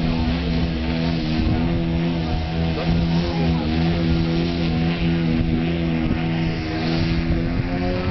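Radio-controlled aerobatic model airplane's engine and propeller running steadily while the plane hangs nose-up in a prop-hang hover. It makes one droning note that wavers slightly in pitch as the throttle is worked to hold the hover.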